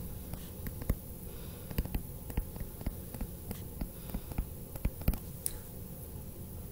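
Digital stylus tapping and scraping on a tablet screen during handwriting: a scatter of faint, irregular clicks over a steady low hum.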